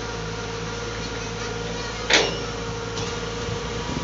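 UNIC truck-mounted crane working under hydraulic power, its pump giving a steady whine over the hum of the truck's engine. A single sharp metallic clank comes about two seconds in.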